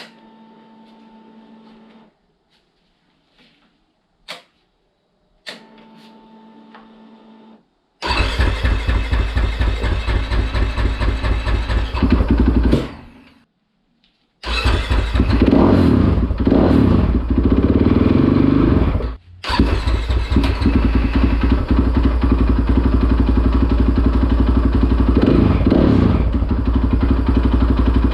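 KTM 500 EXC single-cylinder dirt bike with a newly fitted fuel pump: the pump hums for about two seconds as it primes, twice, with a few clicks, then the engine fires about eight seconds in and runs. It stops after about five seconds, starts again and keeps running with a few blips of the throttle, showing the new pump has cured the crank-but-no-start.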